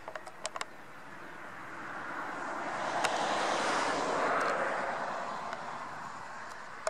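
Lufthansa Regional Embraer E-Jet's twin turbofan engines on final approach: a steady jet rush that swells to its loudest about three to four seconds in, then fades as the airliner passes low toward touchdown. A few short clicks sound about half a second in.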